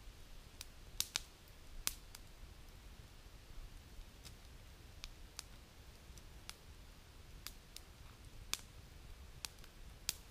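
Wood fire crackling, with scattered sharp pops at uneven intervals.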